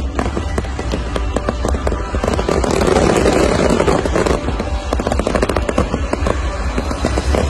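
Fireworks crackling and popping in dense rapid bursts, with a louder rush of noise about two to four seconds in.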